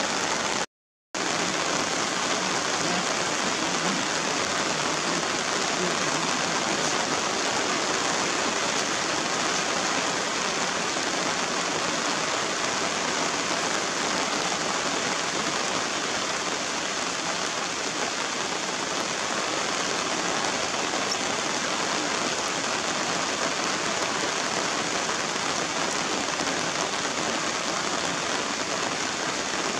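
Steady rain falling on wet surfaces, an even hiss, briefly cut to silence about a second in.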